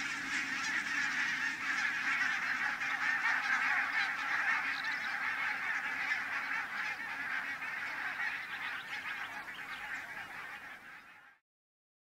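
A large flock of barnacle geese calling, a dense unbroken chatter of many overlapping yapping calls. It eases slightly toward the end and then cuts off abruptly.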